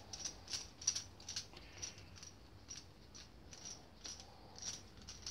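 Faint, irregular metallic clicks and rattles, a few a second, as the home-made slide-hammer adapter is wound off the threaded end of the transfer box's output shaft.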